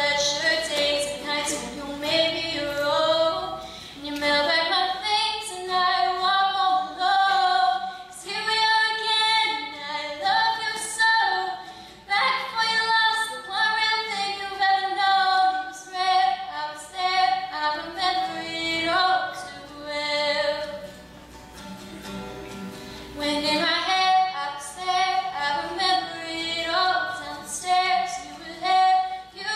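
A teenage girl singing a slow song, with long held notes. The singing goes softer for a couple of seconds about two-thirds of the way through.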